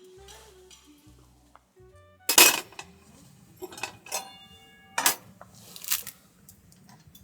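Tableware and cookware clinking: about five sharp strikes with a brief ringing after each, the loudest one a little over two seconds in.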